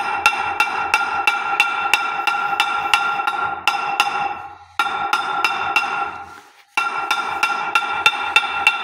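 Hammer blows on a steel drift driving a steel ring into the hub of a MAN truck flywheel, about four or five blows a second, the flywheel ringing with each strike. The hammering comes in three runs with two short breaks, the second break coming just over a second after the first.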